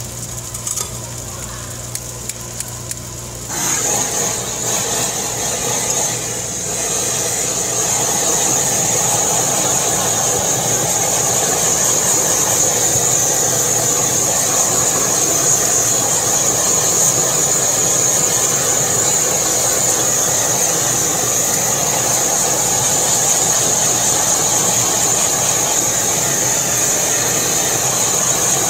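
Chicken pieces sizzling on a flat-top griddle. About three and a half seconds in, a handheld gas blowtorch is lit and runs with a steady, loud hiss as its flame sears the chicken.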